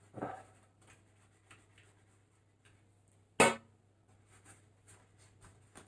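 Quiet handling of a cardboard record longbox while glue is applied, with one sharp click about three and a half seconds in.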